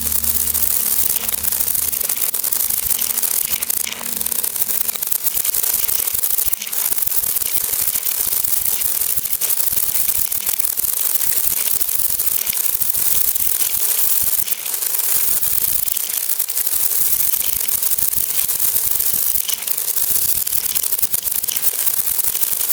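Beads rushing and rattling, played in reverse: a steady, dense hiss of many tiny clicks.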